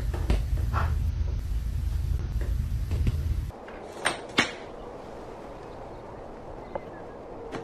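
A steady low rumble cuts off suddenly after about three and a half seconds. Then come two sharp knocks a third of a second apart as a cat paws objects off the top of a chest of drawers, followed by quiet room tone with a faint tick near the end.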